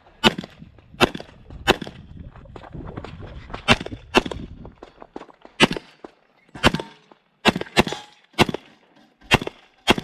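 A string of pistol shots from an HPS/STI 2011 in .40 S&W: about a dozen sharp cracks, fired in singles and quick pairs with uneven gaps between them.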